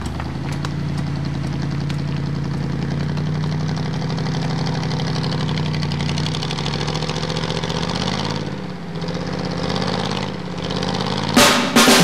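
Lifted first-generation Ford Bronco's engine running at low, steady revs while crawling over a steep rock slope, briefly dropping off twice in the second half. Loud rock music cuts in just before the end.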